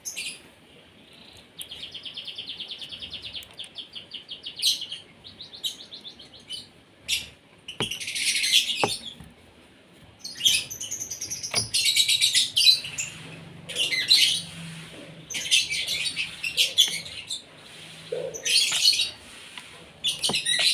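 Asian pied starling calling: a rapid, even rattling trill for a few seconds, then a run of harsh, chattering calls, with a few sharp clicks in between.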